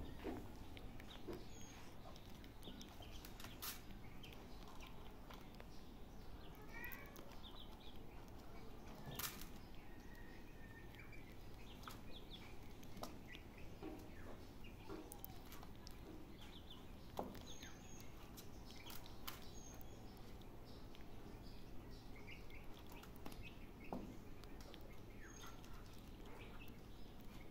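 Faint outdoor ambience with short bird chirps now and then and a few small clicks and rustles.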